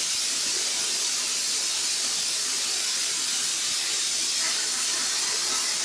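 Plasma cutter torch on an ArcDroid CNC robot cutting through metal plate, a steady high hiss of the arc and air jet.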